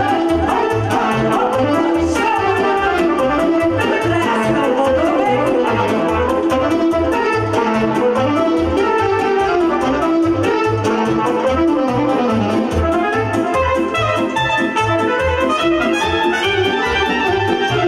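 A live band playing dance music: a saxophone leads the melody over keyboard accompaniment and a steady bass beat.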